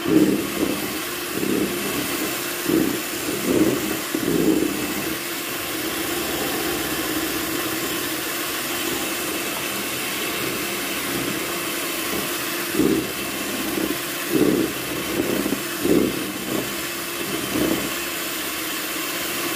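Electric hand mixer running steadily, its twin beaters whipping a thick egg-and-sugar batter in a plastic bowl. Uneven louder pulses come through in the first few seconds and again in the last several seconds.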